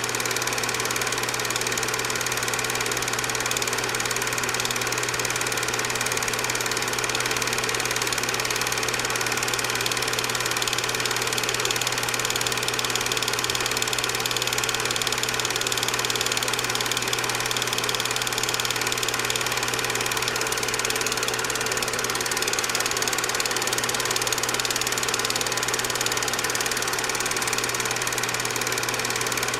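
Film projector running: a steady motor hum and whir that stays the same across the picture's cuts.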